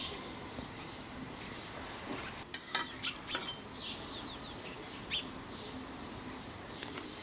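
Kitchenware clinking a few times, sharp knocks near the middle, with small birds chirping now and then.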